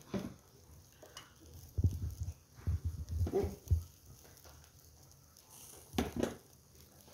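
Dull knocks, then a sharp click about six seconds in, as metal skewers of chicken are handled on a wire grill rack.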